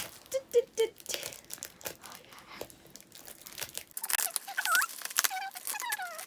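A parcel's packaging being torn open and crinkled by hand, with rustling and crackling throughout. A few short squeals come near the end.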